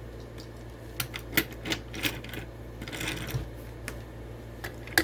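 Irregular sharp clicks, taps and a short crackle of plastic toy packaging and a small die-cast toy car being handled, over a steady low hum.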